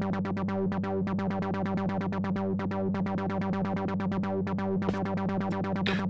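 Korg ARP ODYSSEi software synthesizer playing a fast, even run of short repeating notes over a steady low held tone.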